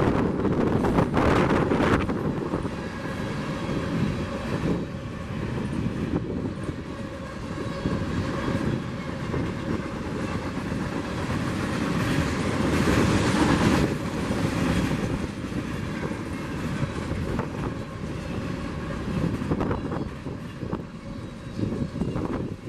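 Freight train cars rolling past, steel wheels clicking and clattering over the rail joints, with wind on the microphone; the sound eases somewhat near the end.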